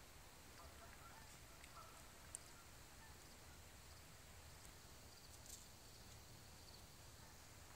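Near silence: faint outdoor ambience with two brief faint ticks.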